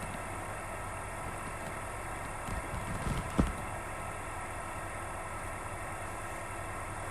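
Steady hum of a cricket bowling machine's motor and spinning wheels, with a single sharp crack of bat on ball about three and a half seconds in.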